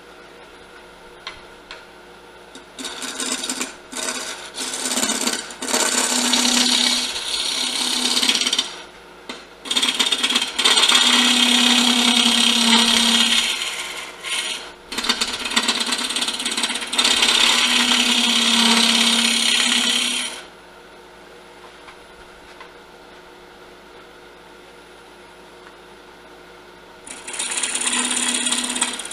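Grizzly wood lathe spinning a bowl blank at 1,000 RPM while a round cutter scrapes the bottom face in several passes, a loud scraping cut over the lathe's steady hum. The cutting stops for several seconds about two-thirds through, leaving only the motor running, and starts again near the end.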